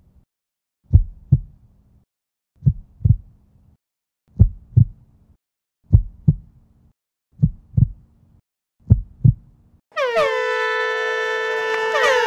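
A heartbeat sound effect: six double beats, about one every second and a half, with silence between. About ten seconds in, a hand-held air horn blasts and holds a loud, steady note, the signal that starts the race.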